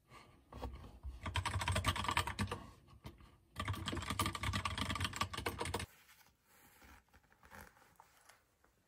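Typing on a computer keyboard: two runs of rapid key clicks, each a couple of seconds long with a short pause between, followed by a few faint scattered taps.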